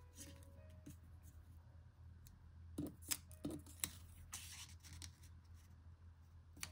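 Faint handling of small craft pieces on a desk: a few light clicks and taps around the middle, then a short rustle, over a steady low hum.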